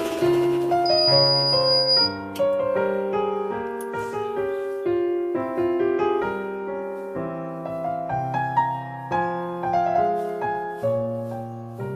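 Background piano music: a gentle melody of single piano notes and chords, each struck and left to fade.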